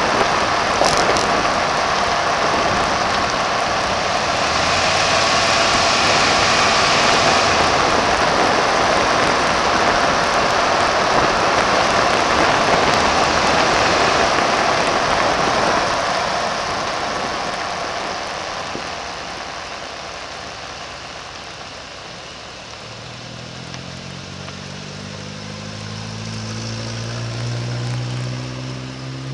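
Tyre and wind noise from a 1992 Chevy Suburban driving on a wet, slushy road, picked up at the front plow frame. The noise fades as the truck slows, and near the end the engine is heard idling while it waits at a red light.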